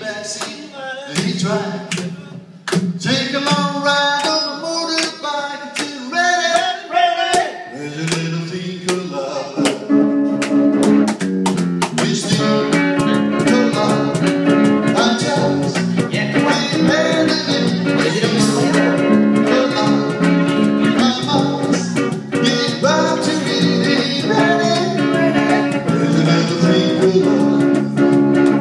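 A live band playing, with a singer and guitar. About ten seconds in, the full band comes in with a steady beat.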